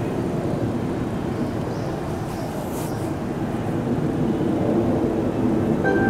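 Electric train running at the station platform, a steady rumble that grows slowly louder toward the end, with a couple of brief faint high hisses near the middle.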